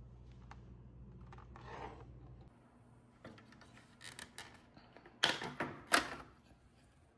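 Clicks, rattles and scrapes of plastic and metal parts as a dishwasher's control panel is being taken apart by hand, with a louder clatter about five to six seconds in. A faint low hum stops about two and a half seconds in.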